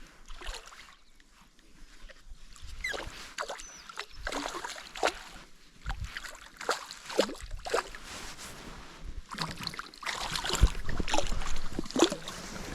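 Water splashing and sloshing in short, irregular strokes, denser from about ten seconds in.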